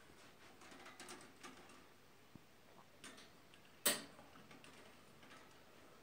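Scattered faint clicks and light rattles of a wire birdcage being handled on its hanging hook, with one sharper click a little before four seconds in.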